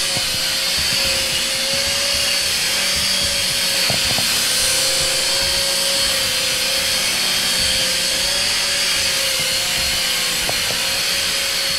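Air Hogs Twin Vortex RC aircraft in flight: its two small electric motors driving the foam-ringed main rotors give a steady high whine over a rush of air. The pitch wavers slightly as the throttle is worked.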